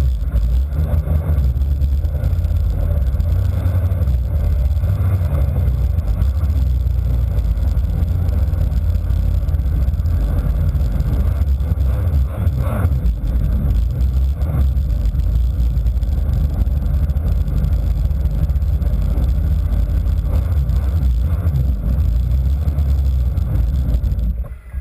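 Radio-controlled model powerboat's engine idling while the boat sits at the landing stage, heard as a steady low rumble through the hull, then cut off abruptly near the end.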